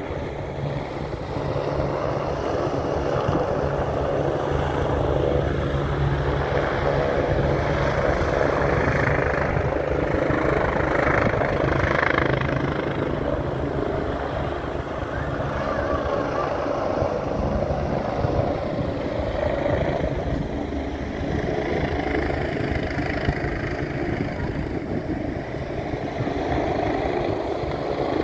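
Steady low engine drone under an even rushing noise, holding level throughout.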